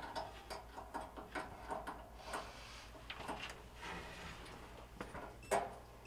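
Quiet, irregular clicks and taps of wire terminals and multimeter test leads being handled at a dryer's high limit thermostat during a continuity check. There is a brief rustle about two seconds in and a sharper click near the end.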